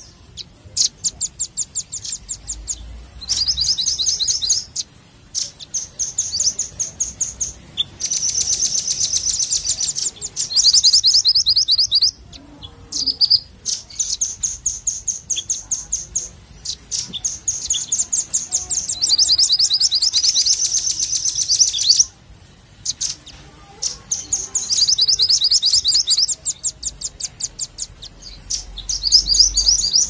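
Minivet calling in bursts of rapid, high chirping notes, each run lasting one to several seconds with short pauses between.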